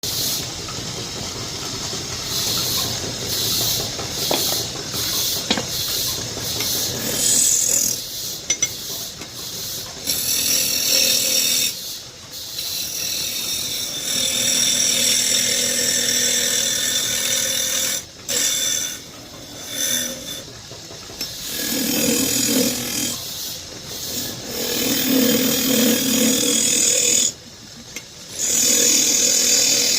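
A power tool working wood, cutting or sanding in runs that stop and start again several times, with a low motor hum under the hiss in some stretches.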